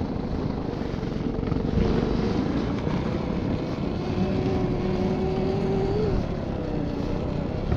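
Electric snowbike with a snow track kit riding through deep snow: a steady rumbling drive noise under a thin electric motor whine that rises about six seconds in and then drops away.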